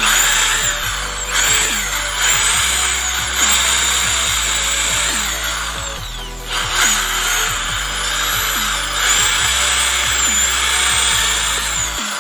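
Ingco 600 W impact drill running under load, boring holes into a wooden plank. It eases off briefly about six seconds in, then bites in again.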